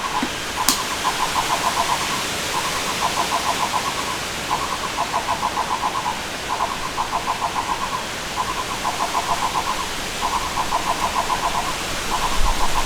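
An animal calling over and over: trains of rapid pulses, each lasting just over a second and repeating about every two seconds, over a steady hiss.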